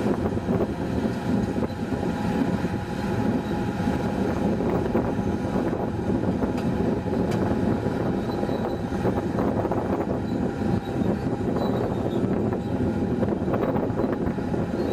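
Komatsu PC3000 hydraulic mining excavator running steadily as its long boom lowers the bucket into the water, an even mechanical drone with no sharp knocks.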